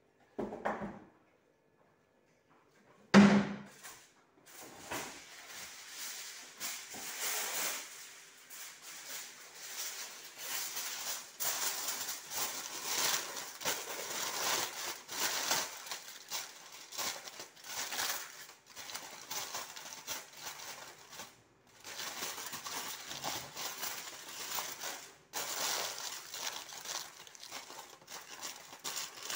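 Aluminium foil crinkling and rustling as it is spread over a plastic basin and pressed around its rim. A single loud thump comes about three seconds in.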